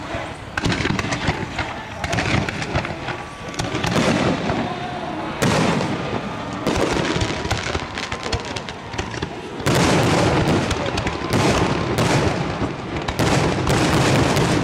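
Aerial fireworks display: a near-continuous barrage of shells launching and bursting, the bangs and crackles overlapping, with louder volleys partway through.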